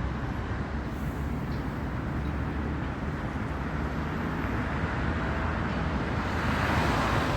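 Steady road traffic noise that swells a little near the end.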